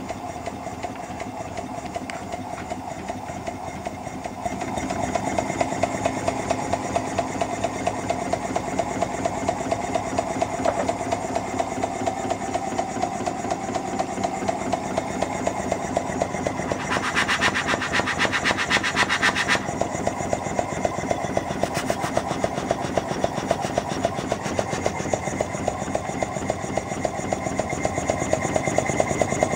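5-inch gauge Royal Scot model locomotive chassis running on compressed air through its two outside cylinders, with the inside cylinder disconnected. Its wheels and motion spin free, making a fast, even beat. It gets louder about four seconds in, and there is a harsher, higher-pitched stretch of about two seconds a little past the middle.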